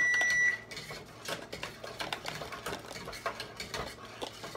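A steady electronic beep from a kitchen appliance cuts off about half a second in. It is followed by a rapid, irregular clatter of light taps, a utensil knocking against a pot as the sauce is stirred.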